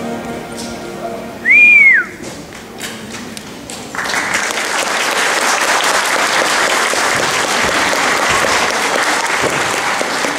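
The backing music fades out. About one and a half seconds in comes a single loud whistle that rises and falls. A few scattered claps follow, and from about four seconds in the audience applauds steadily.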